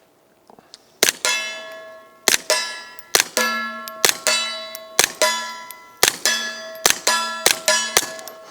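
A .22 GSG 1911 pistol with a Banish 22 suppressor firing about nine shots at roughly one a second. Each muffled shot is followed about a quarter second later by the ringing clang of the bullet striking a steel target at 40 yards.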